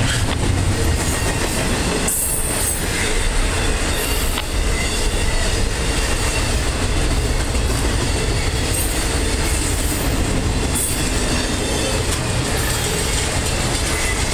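Double-stack intermodal train's loaded well cars rolling past close by: a steady noise of steel wheels on rail, with a few short high-pitched wheel squeals now and then.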